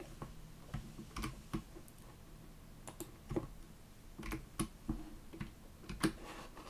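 Keystrokes on a computer keyboard: a dozen or so separate, irregularly spaced taps as a short line of code is typed.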